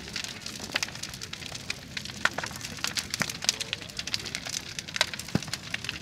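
Large bonfire of piled branches crackling, with many sharp irregular pops and snaps.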